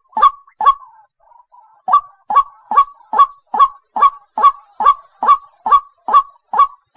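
White-breasted waterhen calling: loud, harsh notes repeated about twice a second. Just under a second in there is a brief break filled with a few softer notes, then the steady calling resumes.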